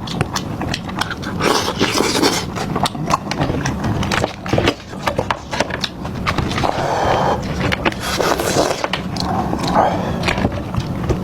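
Close-miked chewing and crunching of food: a dense run of sharp crackly clicks and wet mouth noises.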